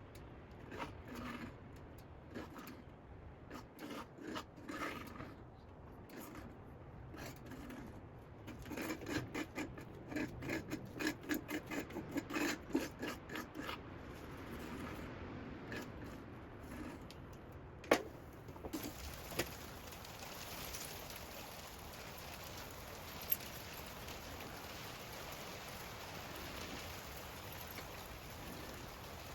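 Repeated scraping strokes, speeding up to about two or three a second in the middle, then a sharp knock and a steady hiss for the last third.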